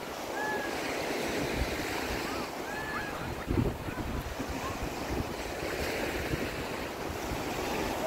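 Small waves breaking and washing up a sandy shore in a steady wash of surf, with gusts of wind buffeting the microphone.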